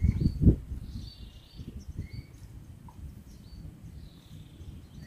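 Birds calling: short high chirps repeating every second or two over a low rumble. A few dull, heavy bumps in the first half second are the loudest sounds.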